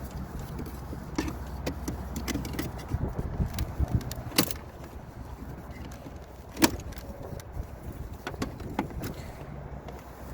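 Scattered plastic clicks and knocks from hands unplugging the electrical connectors behind a car's door panel, with one louder sharp knock about two-thirds of the way through, over a steady low hum.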